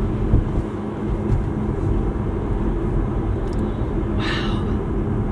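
Steady low rumble inside a car, with a faint steady hum under it. A short breathy hiss comes about four seconds in.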